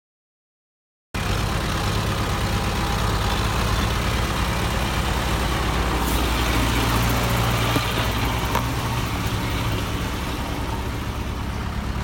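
Zetor tractor's diesel engine running steadily, heard from inside a tractor cab, starting about a second in after silence.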